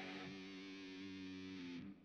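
Background music with a distorted electric guitar holding sustained notes, stopping abruptly just before the end.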